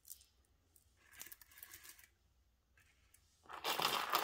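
Handling noise: rustling as glass-bead necklaces are picked up and moved, soft about a second in and louder from about three and a half seconds.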